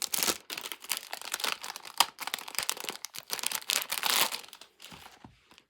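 Packaging of a K-pop album crinkling and rustling as it is handled and opened, with many small crackles, a sharp click about two seconds in and a louder rustle about four seconds in, quieter near the end.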